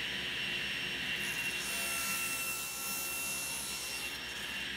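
Table saw running and ripping a 2x4 lengthwise. The blade's steady whine is joined by the hiss of the cut from about a second in until near the end.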